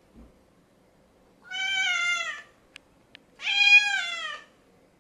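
Domestic cat meowing twice: two drawn-out meows about a second apart, each sagging slightly in pitch at the end, with two small clicks between them.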